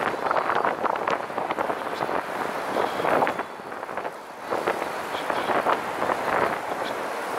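Wind buffeting the microphone of a camera riding on a moving recumbent trike, mixed with passing road traffic. The rushing noise rises and falls in gusts and dips briefly about halfway through.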